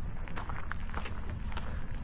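Footsteps walking on a hard path, a quick irregular run of short clicks over a steady low rumble.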